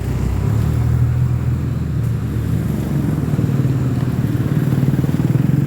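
A bus's diesel engine running: a deep steady rumble that takes on a fast, even pulsing beat from about three seconds in.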